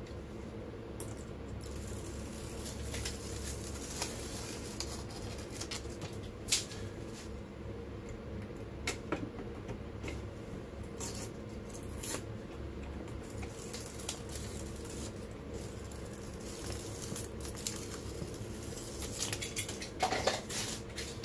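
Backing film being peeled off the double-sided tape inside an aluminium stair nosing: faint, scattered crinkles and small ticks over a steady low hum.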